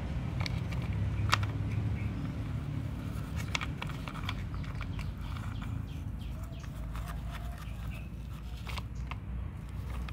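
Plastic toy trucks being handled and pushed over dirt, with scattered sharp clicks and knocks of plastic against plastic over a steady low rumble.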